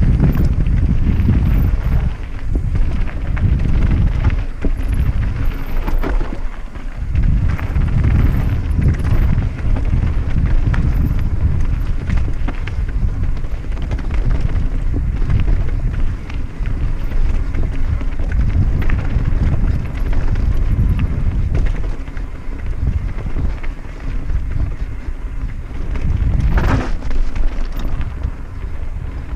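Mountain bike riding fast down a rough trail: wind buffeting the microphone over the tyres rolling and the bike rattling on the ground, with a brief louder burst near the end.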